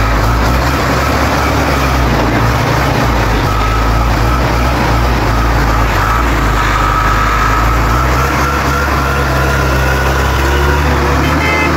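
Hino truck's diesel engine running with a steady low rumble as the truck pulls away slowly.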